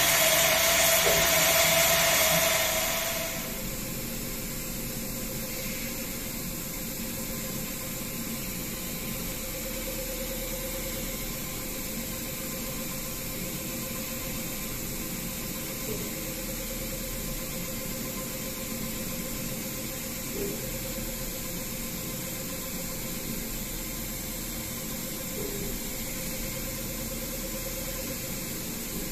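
CNC engraving spindle running steadily with a diamond-tipped tool cutting a pattern into an 18k gold bangle: a constant hiss with a steady whine, louder and brighter for the first three seconds or so.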